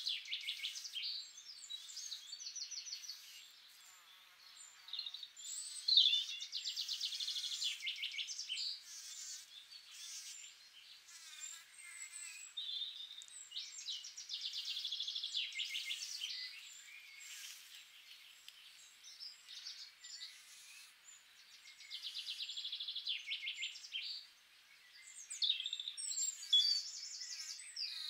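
Small songbirds singing: a high, rapid trilling phrase repeated every several seconds, with other shorter chirps and tweets in between.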